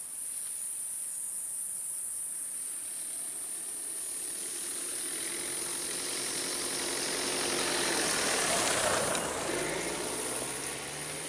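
Renault Kangoo van driving slowly along a dirt track: its engine and tyres grow louder as it approaches, pass closest about eight to nine seconds in, and the engine note drops as it moves away. A steady high hiss lies underneath.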